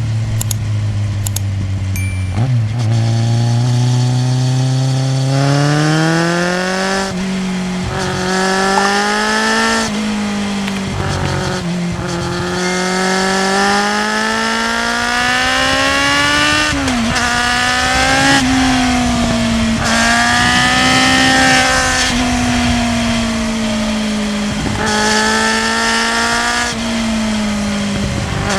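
Kawasaki Z750 inline-four motorcycle engine under way: a low steady note for the first couple of seconds, then the pitch climbs in long pulls that drop back suddenly at each gear change, and later the revs rise and fall more gently while cruising.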